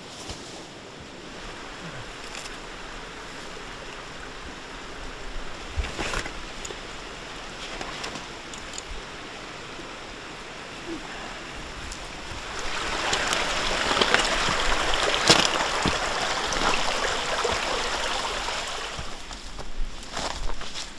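A steady rushing hiss, with a sharp knock about six seconds in from handling gear. About halfway through, louder crackling rustles of footsteps and clothing brushing through grass and undergrowth set in for several seconds, with a few more knocks near the end.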